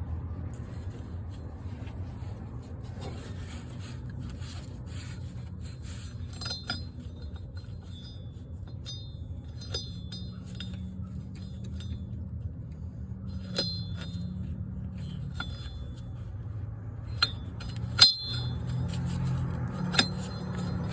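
Metal hand tools clinking and scraping as a socket and extensions are handled: scattered sharp clinks, the loudest near the end, over a steady low hum.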